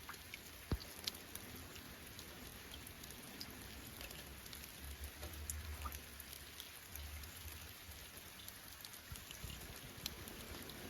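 Light rain falling, drops pattering on surfaces with many small scattered ticks and a couple of sharper drop taps about a second in.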